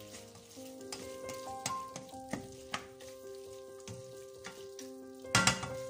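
Diced chicken sizzling in a stainless steel pan while a spatula stirs it, scraping and tapping against the pan, with a louder clatter of the spatula about five seconds in. Soft background music with held notes plays underneath.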